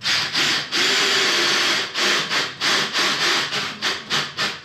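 Rhythmic rasping strokes of a tool or hand on a hard surface: one continuous stretch for about the first two seconds, then short strokes at about three to four a second.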